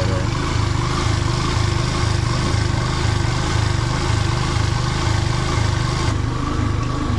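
Motorcycle engine idling low with an uneven, pulsing beat while its idle speed is being adjusted at the carburettor; the bike has a running problem and is overheating.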